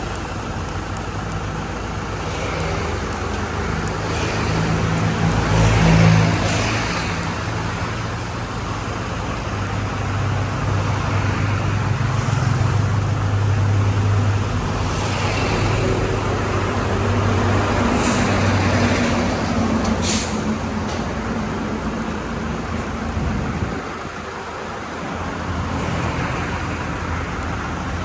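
A motor vehicle engine running steadily with road-traffic noise around it, swelling about six seconds in and dipping briefly near the end, with a couple of sharp clicks along the way.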